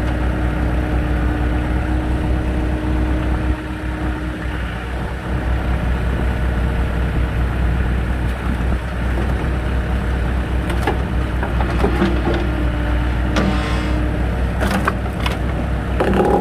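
Engine running steadily to drive a hydraulic log splitter, its note holding a steady hum that drops out and returns. From about two-thirds of the way in, wood cracks and snaps as a log is split, several sharp cracks near the end.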